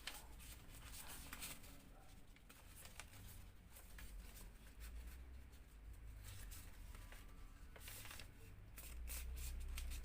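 Origami paper being handled and folded by hand: faint, scattered rustles and crinkles of the sheet.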